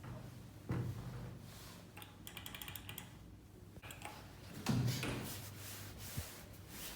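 Lift mechanism sounds: a low thump about a second in, a brief run of rapid clicking a couple of seconds later, and another thump near the end.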